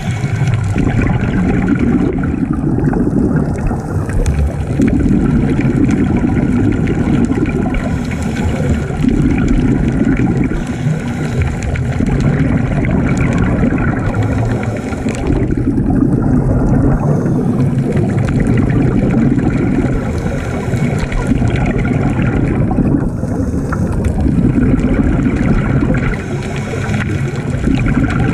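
Underwater sound of scuba breathing heard through a camera housing: the regulator and the diver's exhaled bubbles make a low bubbling rumble that swells and eases every few seconds.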